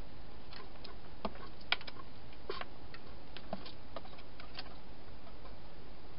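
Wild hedgehog crunching dry food inside a plastic feeding box: irregular sharp clicks and crunches, the loudest a little under two seconds in, over a steady hiss.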